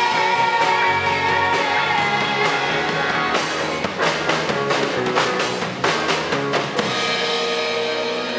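Live rock band playing electric guitars, bass guitar and drum kit, with a run of loud drum and cymbal hits through the middle.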